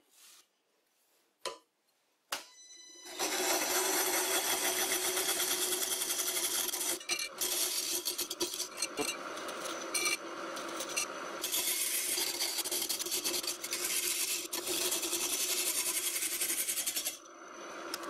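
Wood lathe spinning a green oak blank with a tool held against it, smoothing the surface: the steady hum of the lathe with the rough noise of the tool on the wood. It starts about three seconds in, after a couple of clicks, and stops about a second before the end.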